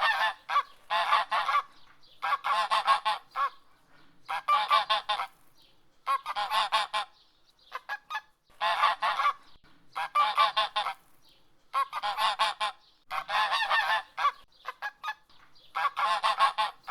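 Domestic goose honking: short bouts of rapid, loud honks repeating every second or two.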